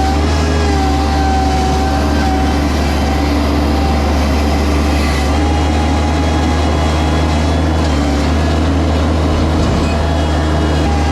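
Bobcat MT100 mini skidsteer running steadily, a deep engine hum with a thin whine over it that wavers slightly in pitch.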